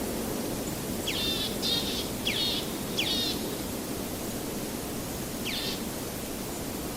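A bird calling: four short, sharply falling chirps in quick succession starting about a second in, then one more near the end. Steady outdoor background noise sits underneath.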